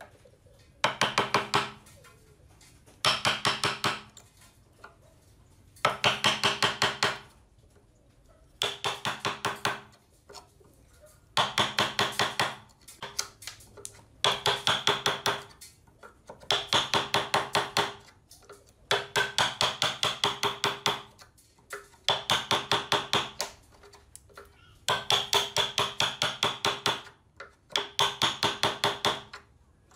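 Wood chisel driven by rapid light hammer taps, chopping out half-blind dovetail sockets in a board. The strikes come in bursts of about a second, many quick taps each with a metallic ring, repeated every two to three seconds with short pauses between.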